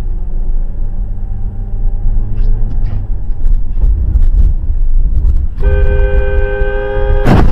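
Vehicle horn sounding one steady two-tone blast of under two seconds, beginning a little past halfway, over the low rumble of a moving vehicle's engine and road noise. A sudden loud noise hits right at the end.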